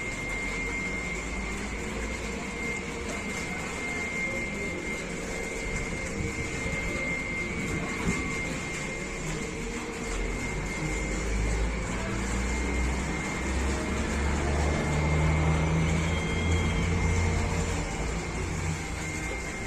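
Wind and a low rumble from a nearby tornado. The rumble grows louder through the second half, over a thin steady high tone.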